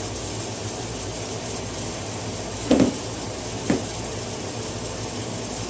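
Pickling cucumbers being dropped into a half-gallon jar: two dull knocks about a second apart, the first louder, over a steady background hum.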